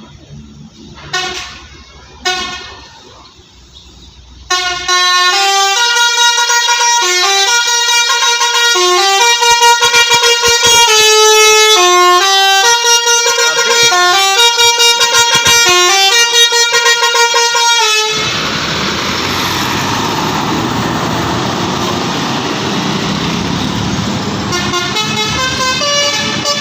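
A bus's telolet horn, a set of multi-tone air horns, plays a rapid stepping melody for about thirteen seconds. It gives way to a loud rushing noise, and the horn tones start again near the end. Two short sharp sounds come in the first couple of seconds.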